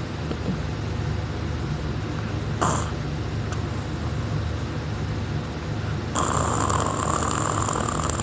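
Person snoring in deep sleep: a low, steady rumble, with a short sharp noise about two and a half seconds in and a louder, higher rasp starting about six seconds in.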